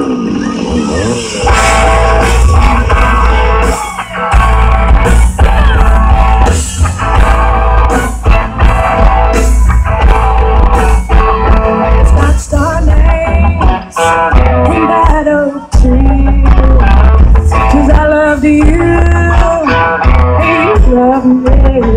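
Live band playing loud country-rock with electric guitar, a heavy bass line and a steady drum beat.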